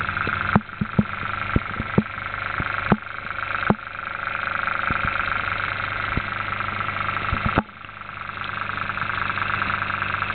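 Small DC motor with two toroidal coils and a neodymium-magnet rotor running with a steady whirring hum. Several sharp clicks come in the first four seconds. A louder click comes near eight seconds; the hum then drops and builds back up over about two seconds.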